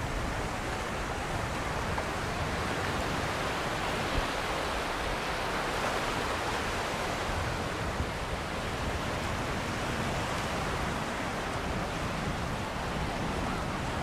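Ocean surf washing onto the beach, a steady hiss of breaking waves that swells slightly midway.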